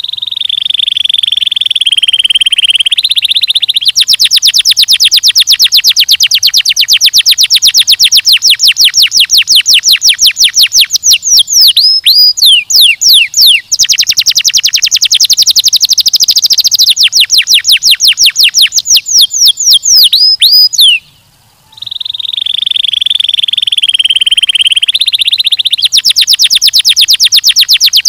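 Domestic canary singing a long, loud song of rolling trills: a held buzzing trill, long runs of fast repeated notes and quick falling sweeps, with a short break about three quarters of the way through before the trills start again.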